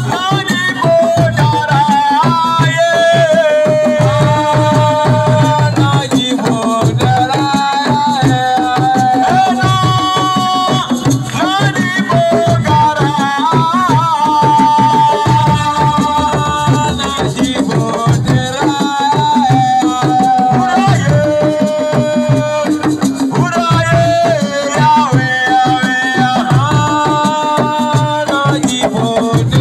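Senegalese assiko band music: hand drums beat a dense, driving rhythm under a melody of long held, sliding notes.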